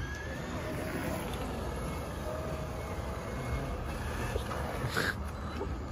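Electric motor of a radio-controlled Traxxas Slash 2WD truck running on asphalt: a faint motor whine over a steady rumble of tyres and outdoor noise, with a brief hiss about five seconds in.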